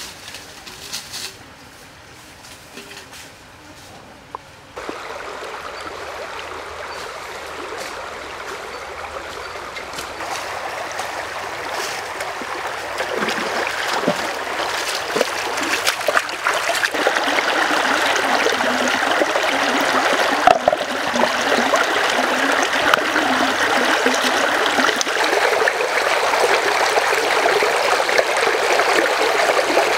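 A few rustles and knocks of someone walking through forest undergrowth, then from about five seconds in a shallow rocky stream rushing and splashing, growing louder, with the splashes of someone wading through the water.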